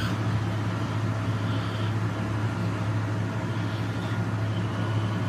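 Electric box fan running with a steady hum and rush of air. A Siberian husky puppy gnaws faintly on a rubber Kong toy.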